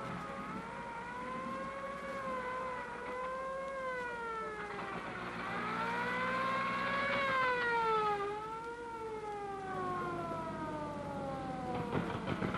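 Fire engine siren wailing, its pitch rising and falling slowly several times, over a vehicle engine running underneath.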